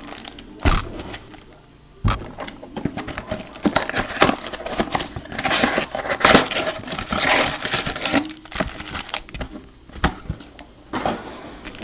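Foil trading-card pack wrappers crinkling and rustling as stacks of packs are shuffled and handled, with a cardboard box being moved around. A couple of dull knocks come in the first two seconds, and the crinkling is densest in the middle.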